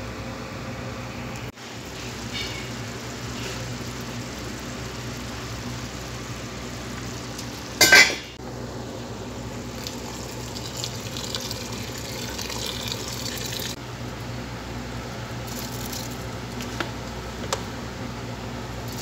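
A pot of green mung beans and spices boiling on a stove, over a steady low hum, with one brief loud clatter about eight seconds in.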